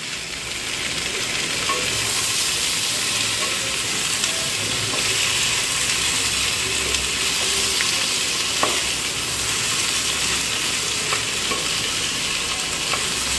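Potato strips and freshly added ridge gourd cubes sizzling in oil in a black wok, stirred with a wooden spatula. The hiss grows louder about two seconds in, with a few light clicks from the spatula.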